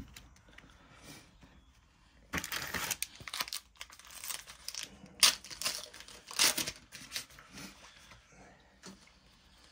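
Foil wrapper of a Match Attax trading-card packet being crinkled and torn open: a few seconds of sharp crackling rustles that start about two seconds in and die away near the end.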